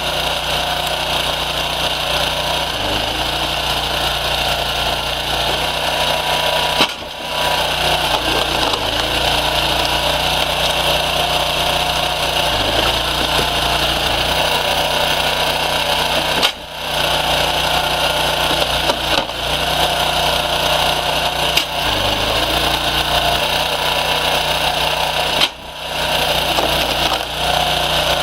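Loud, steady mechanical noise of wood-processing machinery running, with a steady low hum underneath; it drops out briefly three times.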